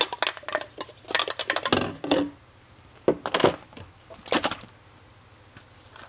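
Hard plastic bottles and pump-sprayer parts being handled and set down on a countertop: quick clusters of clicks and knocks through the first couple of seconds, then a few more short clatters.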